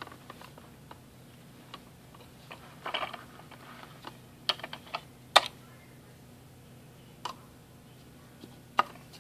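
Plastic parts of a Braun Citromatic 2 citrus juicer clicking and knocking as they are handled, with the reamer cone and strainer lifted off the base. A short scraping rustle comes about three seconds in, then a cluster of sharp clicks around the middle, and a couple of single clicks near the end.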